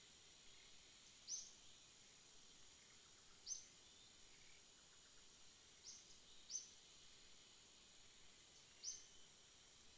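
Faint natural ambience: a steady high, thin insect-like drone with about five short, high chirps spaced two to three seconds apart.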